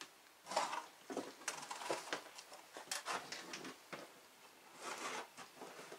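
Scattered small clicks, taps and rustles of hand tools being worked over a circuit board while desoldering with a soldering iron.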